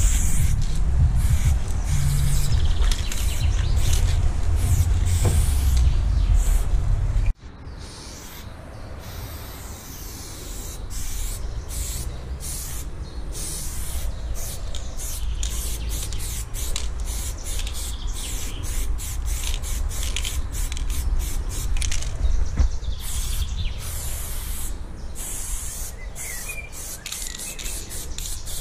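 Aerosol spray paint cans hissing in many short and longer bursts as strokes are sprayed onto a wall. A heavy low rumble sits under the first seven seconds and cuts off suddenly.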